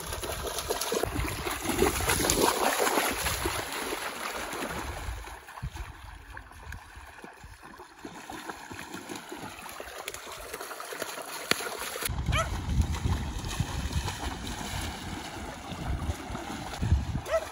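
Doberman running and wading through shallow river water, its legs splashing. The splashing is loudest a couple of seconds in, drops off through the middle and picks up again in the second half.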